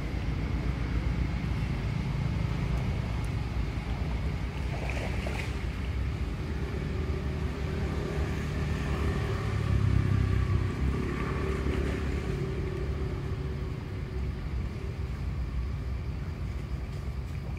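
Steady low rumbling background noise that swells briefly about ten seconds in, with faint thin higher tones in the middle.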